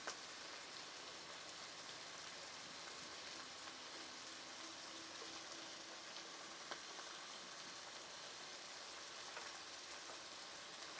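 Dried beef (carne seca) frying as it browns: a faint, steady sizzle, with a couple of small clicks.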